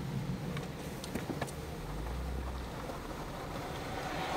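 A car driving toward the microphone on a gravel road, its tyres and engine growing louder near the end, over a low rumble of wind.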